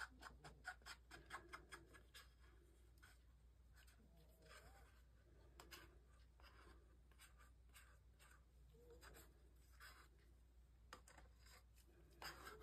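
Faint scraping and ticking of a thin stick against a small mixing cup as leftover epoxy resin is scraped out: a quick run of ticks over the first couple of seconds, then scattered light scrapes, with a slightly louder one near the end.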